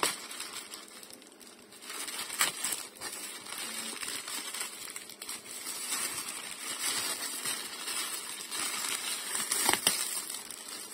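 Plastic bags crinkling and rustling as they are handled and opened, quieter for the first couple of seconds. Two sharper snaps cut through, the louder one near the end.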